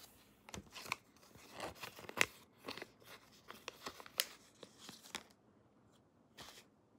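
A paper sleeve being handled and opened and a card ticket drawn out of it: irregular paper rustling and crinkling with sharp crackles. It stops about five seconds in, with one more short rustle near the end.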